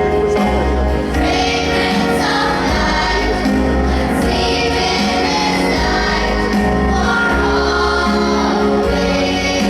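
Choir singing a Christian hymn over instrumental accompaniment with a steady bass line.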